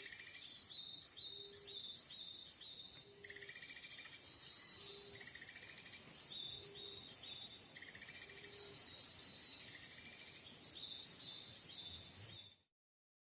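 Small birds calling: repeated high-pitched chirps and trills, with a short low note coming back about once a second. The sound cuts off abruptly near the end.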